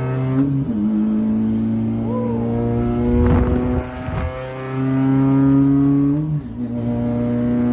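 Honda Brio race car engine running hard, with two sudden drops in pitch like upshifts, about half a second in and again near the end. A loud rushing noise passes through around the middle.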